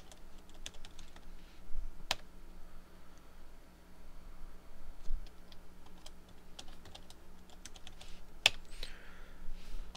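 Typing on a computer keyboard: scattered keystrokes at an SSH password prompt, with three louder key presses spread through, over a faint steady hum.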